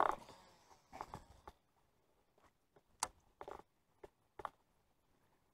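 A handful of faint, short clicks and knocks, scattered a second or so apart, with near silence between them.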